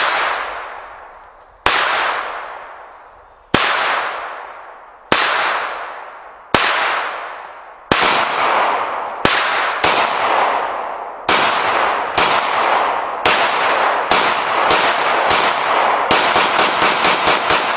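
Pistol shots, fired one at a time about a second or so apart, each with a long ringing tail. In the last second and a half comes a faster string of shots.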